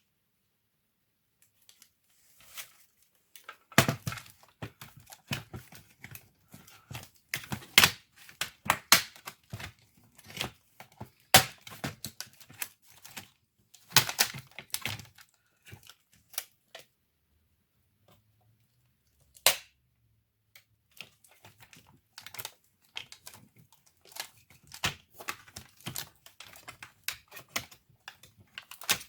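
Irregular plastic clicks, taps and rustling from an HP 630 notebook being taken apart by hand, with a quieter pause in the middle.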